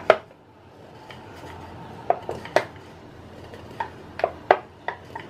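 Wooden rolling pin rolling out dough on a round wooden rolling board, with a series of sharp wooden knocks and clicks as the pin and board bump, several coming close together in the second half.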